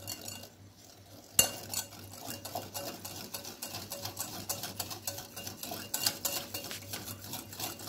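Wire whisk beating a liquid mixture in a bowl: fast, steady clicking and swishing of the whisk against the bowl, starting with a sharp knock about a second and a half in.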